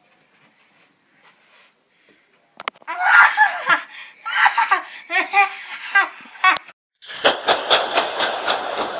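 Near quiet for about two and a half seconds, then a person laughing in short bursts for about four seconds. After a sharp click, music with a quick, even pulse starts about seven seconds in.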